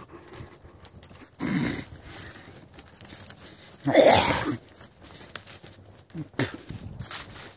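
Footsteps crunching through dry fallen leaves, with a few short louder rustles; the loudest comes about four seconds in.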